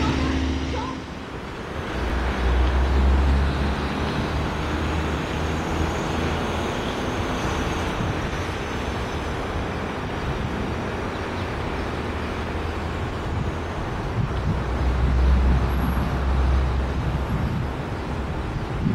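Long Island Rail Road diesel locomotive working under power, a low engine rumble that swells about two seconds in and again near the end, under a steady rushing noise.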